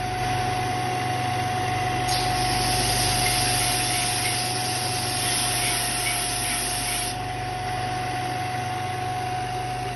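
Allwin belt and disc sander with a 550 W direct-drive motor running with a steady hum and whine. From about two seconds in to about seven seconds, wood is pressed to the abrasive, adding a loud hiss of sanding. At the very end the motor is switched off and its whine starts to fall.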